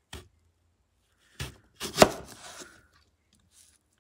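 Chef's knife slicing lengthwise through a peeled green plantain and knocking on a wooden cutting board: a few sharp knocks, the loudest about two seconds in, with a short scrape after it.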